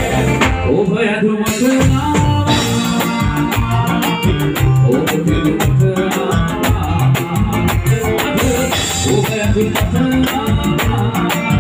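A live band playing, heard close to the drum kit: the drums and cymbals keep a steady beat over low notes and other instruments. The cymbals stop for about a second near the start, then come back in.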